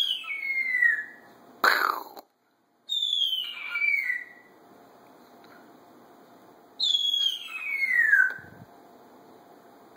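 Timneh African grey parrot whistling three falling notes, each sliding down for about a second and a half, with a short sharp call about two seconds in.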